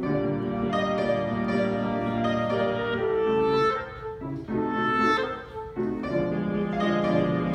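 Clarinet and grand piano playing a Romantic-era clarinet concerto movement together, the piano standing in for the orchestra. The clarinet holds sustained melody notes over the piano's chords, with brief breaths between phrases.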